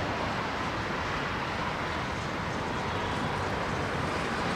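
Twin-engine jet airliner climbing away after takeoff, its engines giving a steady, even noise.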